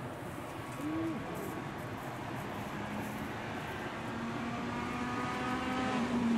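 Citroën DS3 rally car's engine approaching on a gravel stage, growing steadily louder as it nears.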